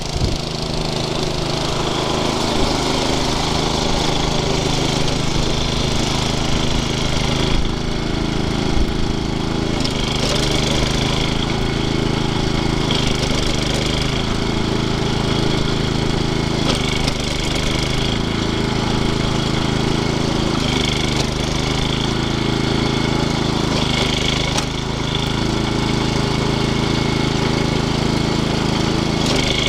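Off-road Yazoo riding lawn mower's small engine running steadily as it is driven over grass, its note shifting a few times.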